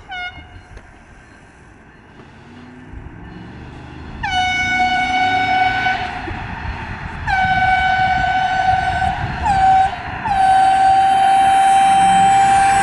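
A single-note air horn blowing the long, long, short, long pattern of a railroad grade-crossing signal, each blast starting with a quick downward swoop before settling on a steady tone; the last blast is held. A low rumble of the passing vehicle runs underneath.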